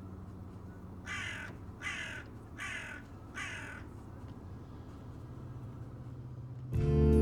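A crow cawing four times, short harsh calls about three-quarters of a second apart. Music comes back in near the end.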